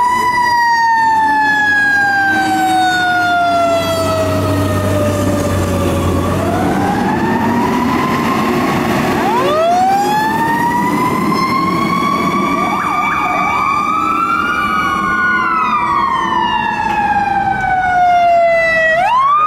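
Fire apparatus sirens wailing as the trucks respond: long wails that rise and then fall slowly over several seconds, with two sirens overlapping from about halfway. A heavy truck engine rumbles underneath early in the passage.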